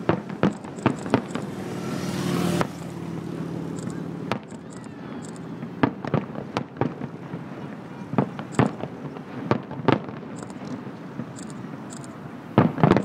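Fireworks display shells bursting: a run of irregular booms and bangs, with a quick cluster of several bangs near the end.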